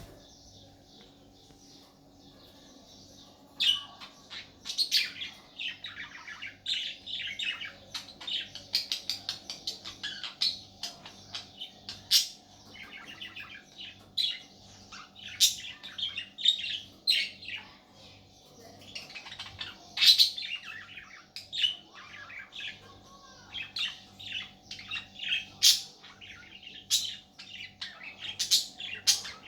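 Budgerigar warble: a fast, continuous chatter of chirps, squeaks and sharp higher calls, starting about three and a half seconds in.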